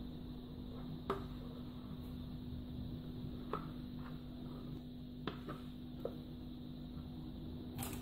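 Quiet scraping and a few light taps of a silicone spatula against the stainless-steel bowl of a Compact Cook Elite cooking robot as thick cake batter is scraped out. The clearest tap comes about a second in. A faint steady hum lies underneath.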